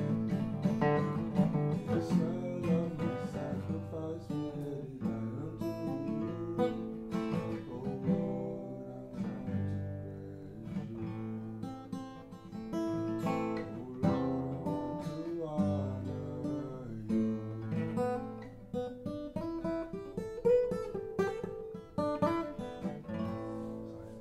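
Acoustic guitar being strummed and picked, chords and notes ringing, dying away near the end.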